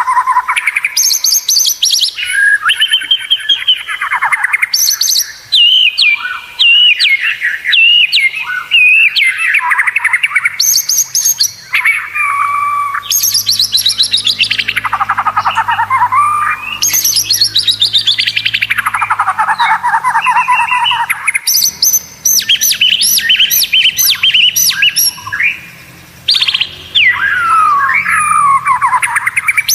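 White-rumped shama (murai batu) singing continuously in fast, varied phrases: rapid trills, rattling runs of repeated notes and long down-slurred sweeps, with brief pauses between phrases.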